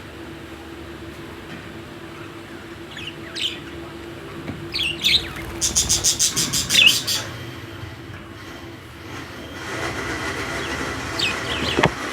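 Budgerigars chirping in short, quick calls, with a fast run of repeated high pips about halfway through, over a steady low background hum.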